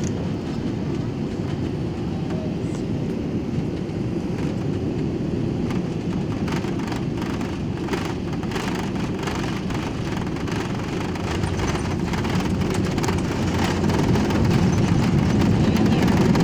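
Airliner cabin noise during landing and the runway roll: a steady low rumble of engines, airflow and wheels, with a stretch of rattling in the middle, growing louder over the last few seconds.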